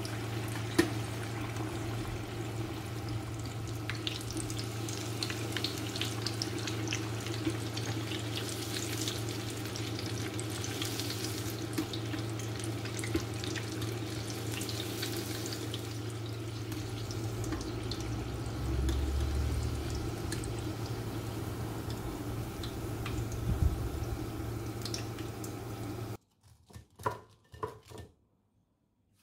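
Breaded cheese balls deep-frying in a saucepan of hot oil: a steady bubbling sizzle with fine crackles over a low hum. Near the end the sizzle cuts off suddenly, followed by a few soft knocks.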